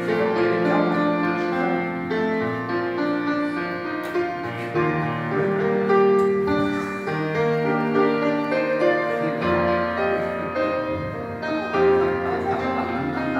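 Instrumental intro of a karaoke backing track: a slow piano ballad played as sustained chords and melody notes, with no voice yet.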